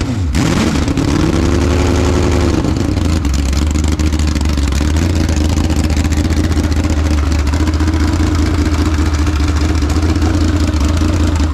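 Quad-cam, 4-valve Chevy 350 small-block V8 on an engine stand, blipped up and down in revs for the first few seconds, then settling into a steady idle. It is running untuned, with the timing thought to be retarded.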